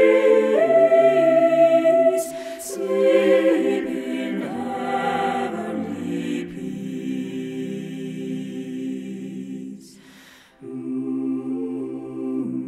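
Choral music: voices singing slow, held chords. The sound fades away about ten seconds in, and the singing starts again a moment later.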